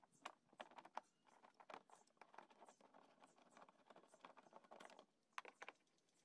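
Faint, irregular small clicks and scraping, the handling noise of tools and parts during disassembly. It pauses briefly near the end, then gives a few more clicks.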